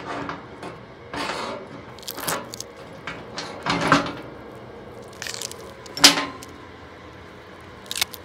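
Steel roller chain rattling and clinking as it is handled and laid on a steel workbench: a string of short jangles a second or so apart, the loudest about four and six seconds in.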